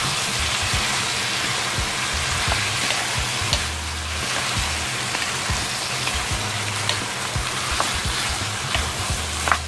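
Raw chicken and pork pieces sizzling in oil in a hot non-stick wok, just starting to fry, while two wooden spatulas toss them and knock against the pan with scattered short clicks and one sharper knock near the end.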